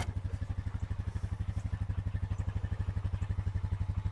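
Four-wheeler (ATV) engine idling steadily: an even, fast putter of about a dozen beats a second.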